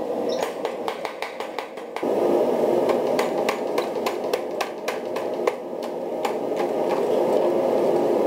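Power hammer pounding a white-hot billet of bloom steel at welding heat to set a forge weld. Its blows come in quick runs of several a second, over a steady machine noise that grows louder about two seconds in.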